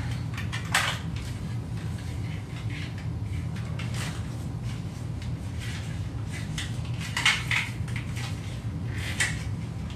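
Scattered light clicks and knocks, a few louder ones about a second in, around seven seconds and near nine seconds, over a steady low hum.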